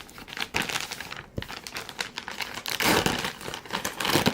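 Packaging rustling and crinkling as a boxed product is handled and opened, with many small clicks and knocks, louder about three seconds in.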